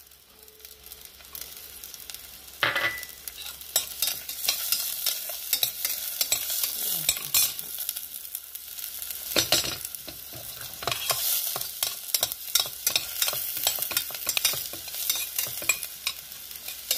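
Chopped onions and garlic sizzling and crackling in hot ghee in a pressure cooker pan, frying to roast the onion, with a slotted steel spoon scraping and stirring against the pan. The sizzle is softer for the first couple of seconds, then grows louder and stays steady.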